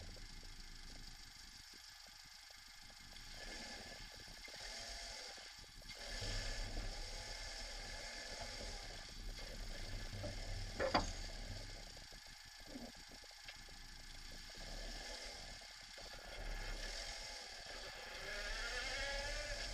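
Opel Corsa D engine running with a low rumble that rises in stretches as it is revved, and a single sharp clunk about eleven seconds in: the clunk the owner suspects comes from broken engine mounts.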